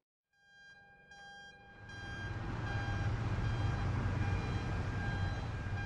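Earthquake sound effect: a low rumble swells up about two seconds in and holds steady. A high beeping tone sounds on and off over it.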